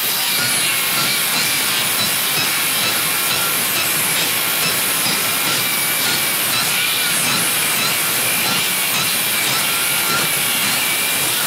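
Cordless circular saw with a Crescent NailSlicer carbide blade cutting under load through a board studded with nails: loud, steady cutting noise over a high motor whine, stopping sharply at the end.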